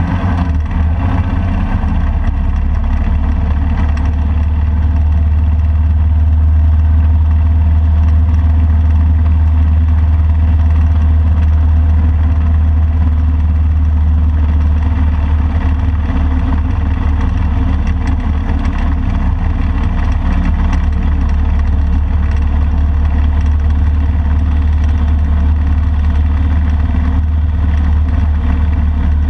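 Motorcycle riding along at a steady speed, engine running, with a heavy, constant low wind rumble on the microphone.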